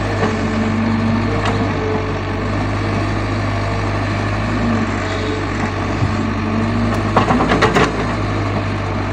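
Caterpillar hydraulic excavator's diesel engine running steadily under load, with a hydraulic whine that rises and fades as the boom and bucket move. About seven seconds in, a quick run of clattering knocks as the bucket dumps soil and clods into the steel bed of a dump truck.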